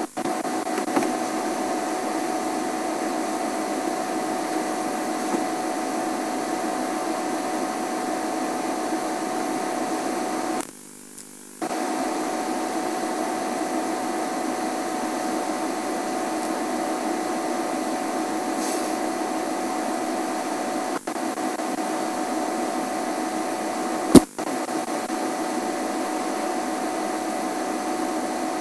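Steady rushing noise with a faint steady hum, cutting out for about a second near the middle, with one sharp click later on.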